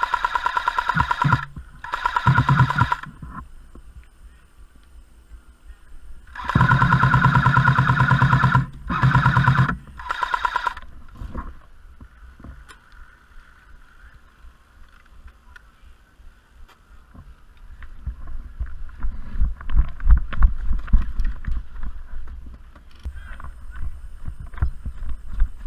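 A&K PKM airsoft light machine gun, an electric gun, firing full-auto bursts: a rapid, even rattle over a steady gearbox whine, in several bursts over the first eleven seconds, the longest about three seconds. Later comes a stretch of irregular low thumps and rumbling.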